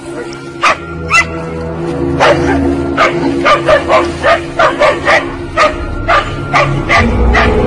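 A dog barking rapidly and repeatedly, sparse at first and then about two to three barks a second from a couple of seconds in.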